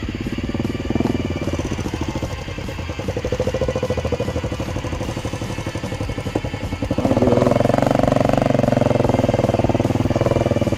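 Motorcycle engine running at low revs, then picking up and getting louder about seven seconds in as the bike pulls away.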